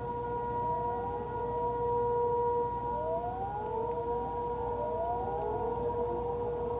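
Outdoor civil-defence sirens sounding a tsunami advisory. One siren holds a steady pitch while others rise in pitch over it again and again.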